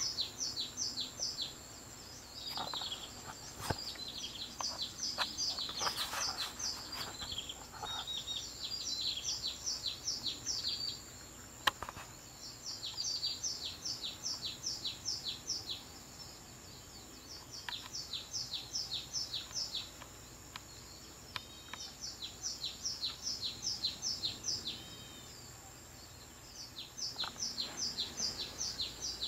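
Songbird chirping: runs of quick, high, evenly spaced chirps, about five or six a second, in phrases of two to four seconds with short pauses between them. A few clicks and knocks come in the first dozen seconds, the sharpest about twelve seconds in.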